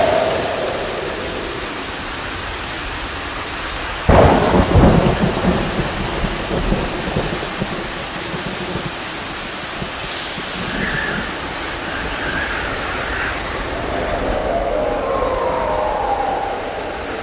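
Thunderstorm: steady rain, with a sudden loud thunderclap about four seconds in that rumbles away over a few seconds.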